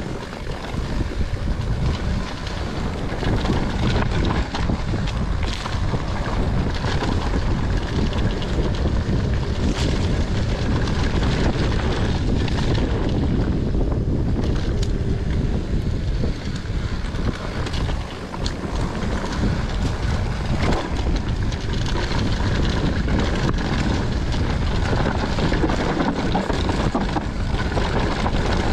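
Wind rushing over the camera microphone during a fast mountain-bike descent, mixed with the rumble of tyres on dirt and dry leaves. Occasional knocks and rattles from the bike hitting bumps.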